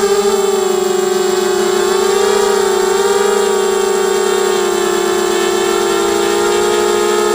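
Small ZMR250-frame racing quadcopter's electric motors and propellers whining steadily in flight, several close tones wavering slightly in pitch as the throttle shifts.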